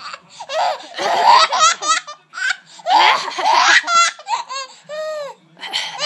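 A woman coughs, about a second in and again about three seconds in, and a baby bursts into high-pitched squealing belly laughs after each cough.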